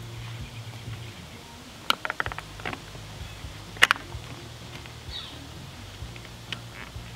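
Plastic clicks and taps of a white vinyl window trim strip being pressed and snapped into its channel by hand: a quick run of small clicks about two seconds in and one sharper click near four seconds, with a few fainter taps later.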